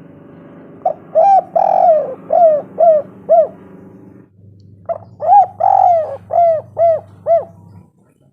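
Spotted dove (tekukur) cooing: two song phrases of about seven coos each, a short note followed by longer arched ones. A faint steady hum runs underneath and stops near the end.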